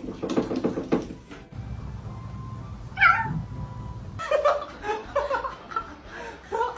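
A cat meowing: a call near the start, a falling call about three seconds in, then several short calls in quick succession.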